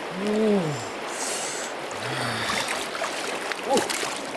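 Shallow river water sloshing and trickling as hands stir and splash in it to grab a fish. Over the water, a few short low sounds rise and fall in pitch: one just after the start, a flatter one about two seconds in, and a quick one near the end.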